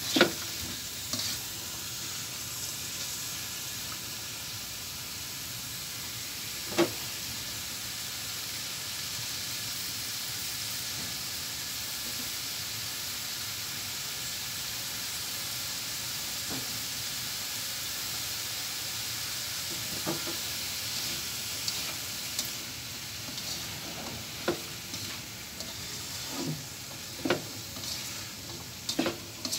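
Chopped pechay (bok choy) stems sizzling steadily as they sauté in a hot pan, with occasional sharp scrapes and taps of a spatula against the pan that come more often near the end. The tough stems are frying on their own, ahead of the leaves.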